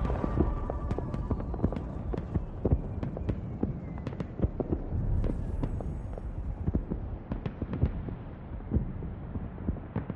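Music fading out, then a low rumble with irregular sharp crackles and knocks scattered through it.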